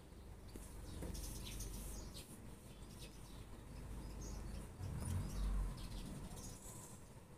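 Small birds chirping in the background: many short, high-pitched chirps. A brief low rumble comes about five seconds in.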